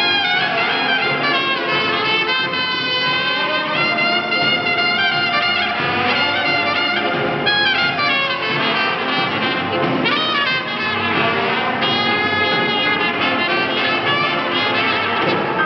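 Swing dance band playing an instrumental chorus, with a trumpet solo over trombone and the rest of the band.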